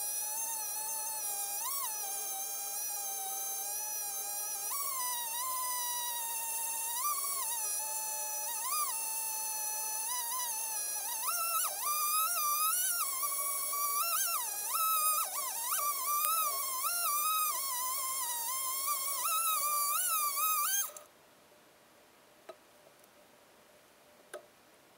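Two-stroke chainsaw in a chainsaw mill running at high speed through a cedar stump. Its high buzzing pitch wavers and jumps up every second or two as the load changes, and runs higher from about halfway. The sound cuts off suddenly near the end, leaving low background with a couple of faint ticks.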